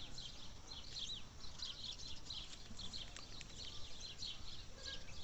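Many small birds chirping continuously in a busy chorus of short, high chirps, over a faint low background rumble.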